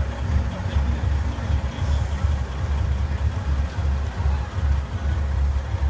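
Semi-truck tractor's diesel engine running with a low, uneven rumble as the rig rolls slowly past hauling a loaded lowboy trailer.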